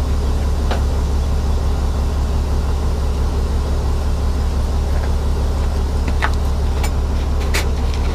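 Heavy diesel truck engine idling steadily with a deep low drone, with a few short metallic clicks over it.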